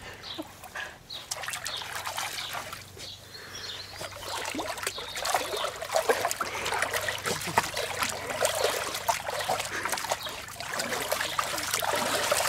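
Shallow water in a paddling pool splashing and sloshing irregularly as a dog wades and noses about in it, with a person's bare feet moving in the water too; the splashing grows louder about halfway through.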